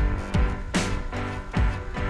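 Background music with a steady drum beat over sustained instrumental chords.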